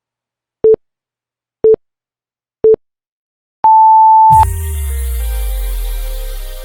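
Workout interval timer counting down: three short low beeps a second apart, then one longer, higher beep. Electronic music with a deep bass comes in right after.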